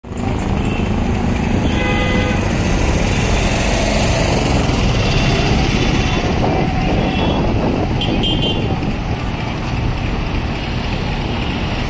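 Steady street traffic noise, with short vehicle horn toots about two seconds in and again a couple of times around seven to eight seconds in.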